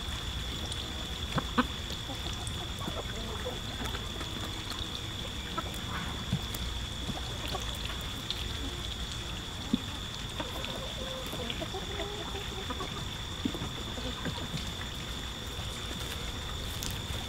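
Backyard chicken flock foraging: scattered soft clucks and the small ticks of pecking and scratching in dry soil, over a steady high-pitched whine and a low steady rumble of outdoor background.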